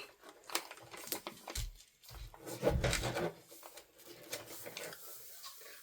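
Small items and packaging being handled: scattered light clicks and rustles, with a couple of soft bumps.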